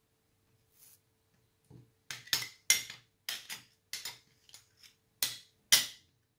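Small fluted metal tartlet tins clinking as they are pulled off a stack and set down on a glass countertop: a couple of faint taps, then about eight sharp clinks over the last four seconds.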